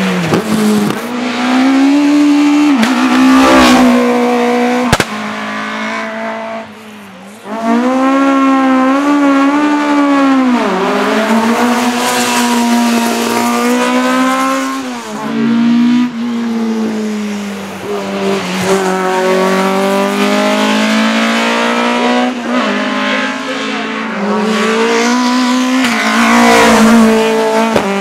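Race car engines at full throttle, several cars one after another. The engine pitch climbs and then drops sharply at each gear change, over and over.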